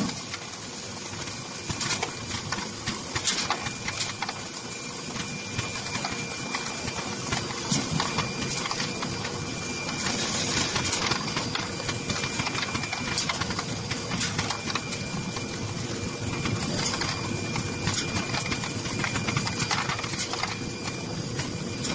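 Photoelectric sorting machine running: a steady mechanical hum with a constant rattle and many small irregular clicks and ticks.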